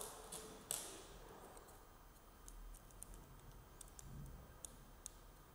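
Faint, scattered small clicks and ticks: tiny machine screws and a plastic quadcopter frame arm being handled and fitted against the frame plate, the clearest click under a second in.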